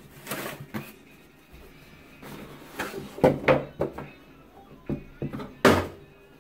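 Cardboard boxes being handled and opened, flaps rustling and knocking, then a hard-shell carrying case lifted out and set down on a wooden table with a thump near the end.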